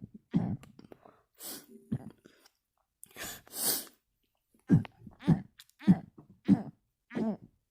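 A person burping repeatedly with the mouth closed: short, low burps about every half second. They break off for about three seconds with a couple of sharp breaths in, then pick up again at the same pace.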